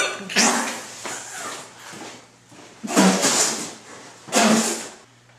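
A man's breathy spluttering and gagging noises in three loud bursts, about a second and a half apart, as he reacts to the taste of a bar of soap in his mouth.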